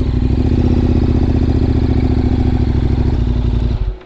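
KTM 1190 Adventure R's V-twin engine idling steadily through an Akrapovic muffler with its baffles removed, then cut off just before the end.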